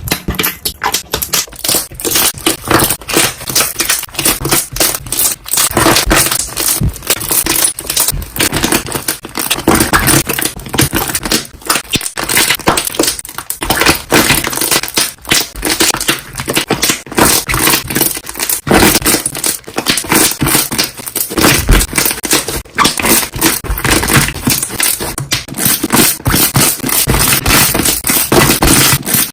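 Slime being pressed and squeezed by hand, trapped air bubbles popping in rapid, dense crackles and clicks that go on without a break.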